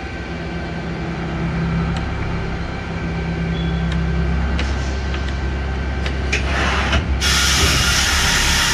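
Okuma MB-5000H horizontal machining center running with a steady mechanical hum and a few clicks from its moving parts. About seven seconds in, a loud hiss of compressed air starts abruptly.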